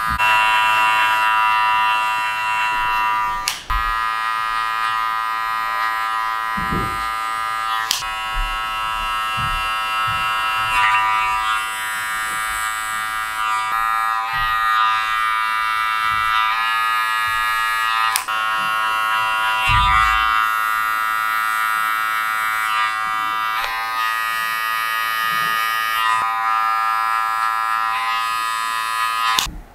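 Electric hair clippers buzzing steadily as they fade the hair, the buzz cutting off and resuming at a slightly different pitch a few times, with a couple of brief low thuds.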